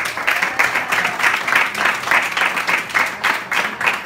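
Audience applauding: many people clapping quickly and steadily for an honoree.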